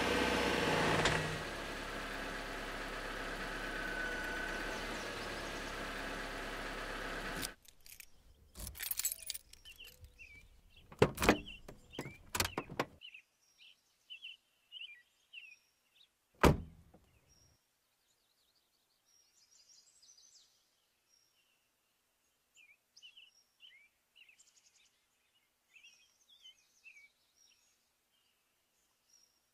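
Car engine running, heard from inside the cabin, shutting off about seven and a half seconds in. Then a string of clicks and knocks as the door opens, one loud car door slam, and faint small birds chirping.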